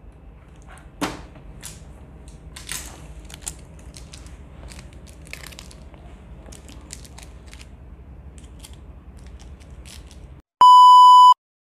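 Light crinkling, scraping and clicks of blue protective tape being peeled off an air purifier's plastic casing. Near the end comes a loud electronic beep of one steady pitch, lasting under a second.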